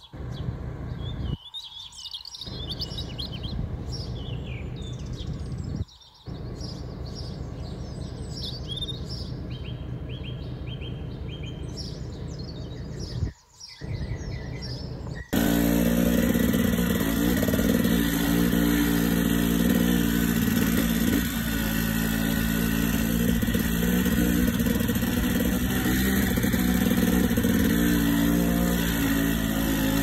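Small birds chirping, with a few brief gaps. About halfway through, the sound cuts abruptly to a dirt bike's engine running steadily as it rides a forest trail.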